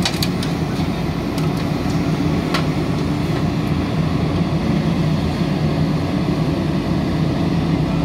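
JCB 3DX backhoe loader's diesel engine running steadily as the backhoe arm works, with a few short knocks and clatters near the start and about two and a half seconds in.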